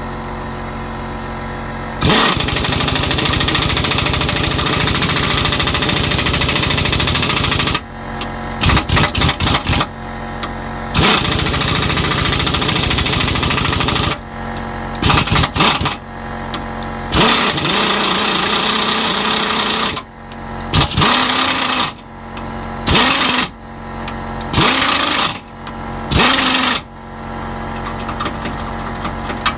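Air impact driver hammering a self-tapping bolt into a drilled hole in a steel vehicle frame, cutting its threads: one long run of about six seconds, then a string of shorter bursts as the bolt is worked in and seated. A steady hum runs underneath.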